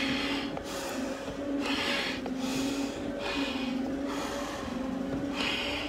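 Firefighter breathing hard through an SCBA face mask and regulator during a stair climb, with a hiss on each breath, repeating about every second, over a steady low machine hum.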